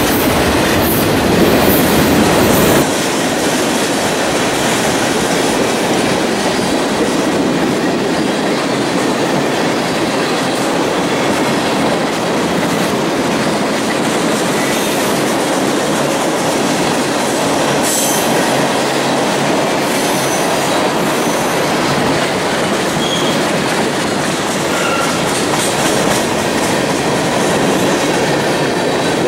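Freight cars (tank cars and covered hoppers) rolling past, with the steady noise of steel wheels running on the rails. A deep low rumble drops away about three seconds in, leaving a lighter, even rolling sound.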